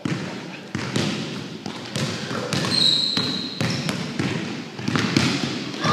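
Basketball being dribbled on a hardwood gym floor, irregular bounces roughly one a second. A brief high squeak sounds near the middle.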